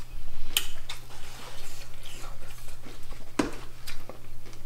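Quiet eating sounds: a few sharp clicks and small mouth noises of people eating at a table, over a steady low hum.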